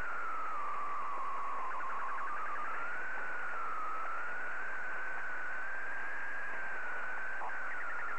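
An unidentified warbling signal on the 80 m amateur band, heard through a shortwave receiver's audio: one whistle-like tone that wavers slowly up and down in pitch over steady band hiss. A faint burst of rapid ticking comes about two seconds in and again near the end.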